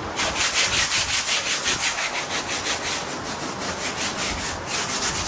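Abrasive scuff pad rubbed in quick back-and-forth strokes over the inside of a fiberglass car body, about five strokes a second with a brief pause near the end. It is roughing up the surface to give bed-liner coating something to grip.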